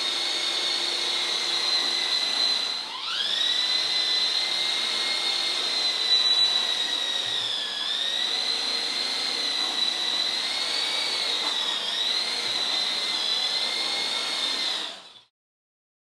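Small coaxial electric RC helicopter's motors and rotors running with a steady high whine. About three seconds in the pitch dips and glides back up, with slight wavers later as it scoots around. The sound cuts off suddenly near the end.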